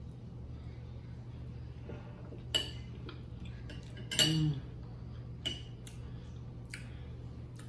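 A metal fork clinking and scraping against a plate about six times, the loudest clink about four seconds in, over a steady low hum.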